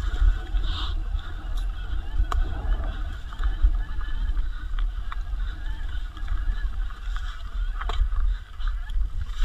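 Wind buffeting the microphone of a mountain e-bike ridden hard down an enduro trail, with tyre and drivetrain noise and several sharp knocks and rattles from the bike over rough ground.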